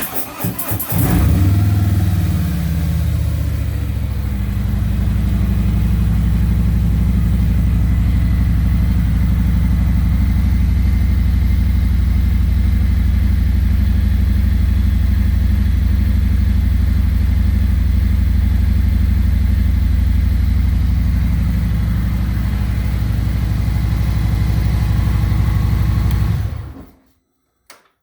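Harley-Davidson Road Glide Special's V-twin engine on its stock muffler starting up, the idle easing down in pitch over the first few seconds after it catches. It then idles steadily and shuts off suddenly near the end.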